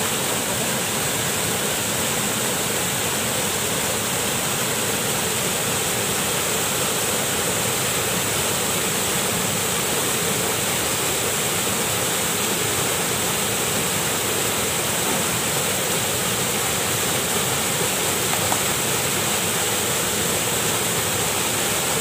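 Small waterfall pouring over a rock ledge into a river pool: a steady rush of falling water.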